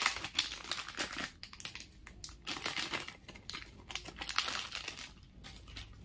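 Plastic crinkling and rustling in irregular bursts as things are handled, quieting about five seconds in.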